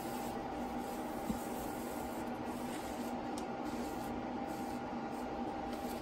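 A cloth wiping and rubbing over a cured epoxy resin surface, soft and intermittent, over a steady background hum and hiss.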